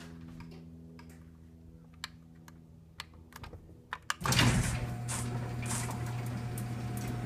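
A few light clicks over a fading hum, then about four seconds in a LiftMaster 3595 chain-drive garage door opener starts with a sudden jolt and runs steadily with a low hum and a higher steady tone, lifting the door on its slack chain.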